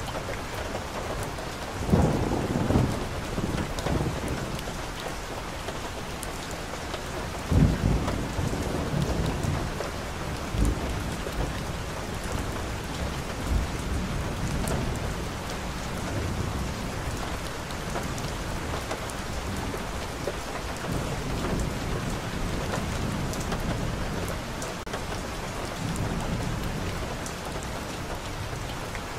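Steady rain falling on a wet street and leaves, a constant hiss, with occasional short low thumps or rumbles, the strongest about two seconds and about seven and a half seconds in.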